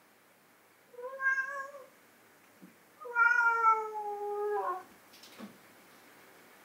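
Calico cat meowing twice: a short meow about a second in, then a longer meow that falls slightly in pitch, followed by a brief sharp sound.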